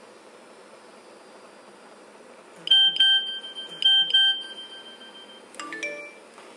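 Mobile phone beeps: two pairs of sharp beeps about a second apart as the Nokia 6131 NFC phone reads the cooking pot's RFID tag and sends a text message. A moment later a short three-note rising chime plays, the iPhone's alert for the incoming message.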